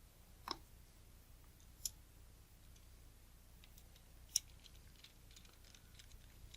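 A few faint, sharp clicks of small metal tools and lens parts being handled during reassembly of a camera lens: three distinct ones, about half a second, two seconds and four and a half seconds in, with fainter ticks after.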